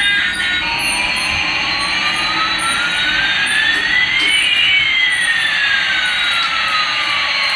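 Jet-engine whoosh: a steady rushing noise with one tone gliding slowly up and another gliding slowly down, the two crossing about halfway through.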